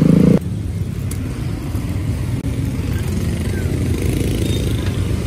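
Low, steady rumble of street traffic. A louder rumble cuts off about half a second in.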